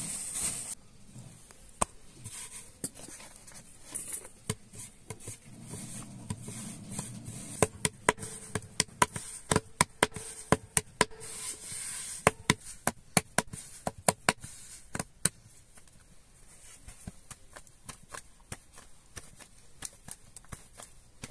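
Hands patting and pressing a ball of lavash dough flat on a floured wooden board. After a few scattered taps, a quick run of sharp pats comes about halfway through, and quieter handling of the thin dough sheet follows.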